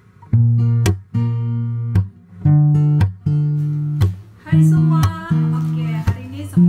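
Background music: an acoustic guitar strumming chords, with a new strum about once a second.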